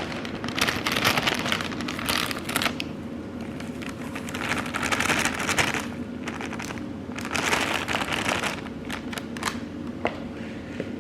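Kitchen sounds of breakfast being cooked: three drawn-out bursts of rustling, crackly noise with a few sharp clicks, over a steady low hum.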